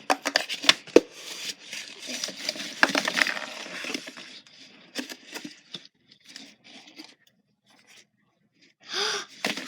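Hands rummaging inside a box and handling a soft object, making a dense rustling and scraping for about four seconds. This thins to a few scattered light taps, then goes nearly silent.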